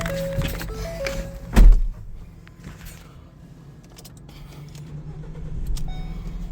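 A vehicle door shuts with a heavy thump about a second and a half in. After a quieter stretch, a low engine hum comes up near the end, with a short electronic chime.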